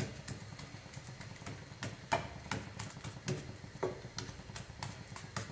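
Kuboos flatbread cooking on a hot nonstick tawa over a high flame: faint, irregular ticks and clicks over a steady low burner rumble, with a light knock of the wooden spatula at the start.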